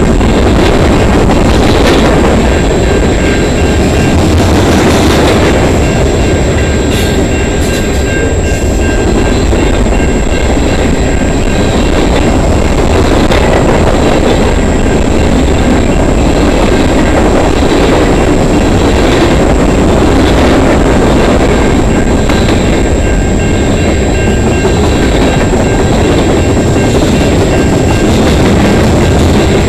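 Freight train cars, covered hoppers and then tank cars, rolling past at a level crossing: a loud, steady rumble and rattle of steel wheels on the rails.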